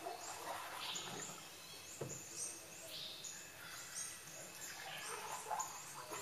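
Birds chirping: short, high, falling chirps repeating quickly throughout, over a faint background hiss, with a soft knock about two seconds in.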